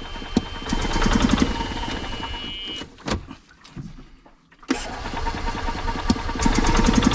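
Club Car golf cart's Kawasaki FE290 single-cylinder engine starting and running. It dies out about three seconds in, then starts again a second and a half later and keeps running. These are its first runs after a new fuel pump was fitted.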